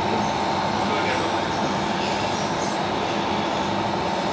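Steady running noise of radio-controlled scale trucks and construction machines: a dense mechanical hum with a thin steady whine over it.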